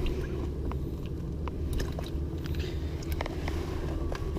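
Steady low rumble of wind and heavy rain, with scattered sharp ticks through it.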